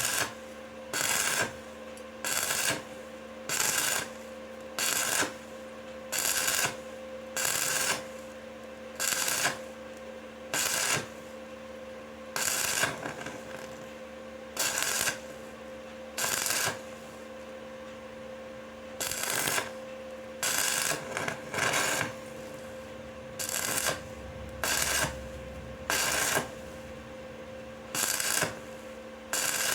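Stick-welding arc struck in short bursts, each a brief crackling hiss about every one to two seconds: the weld is laid spot by spot with pauses so as not to burn through the pipe. A steady hum from the welding machine runs underneath.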